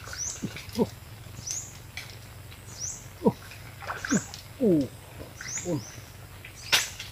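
Wild animal calls: a short high call repeating about every second and a quarter, and several lower calls that slide steeply down in pitch. A short burst of noise comes near the end.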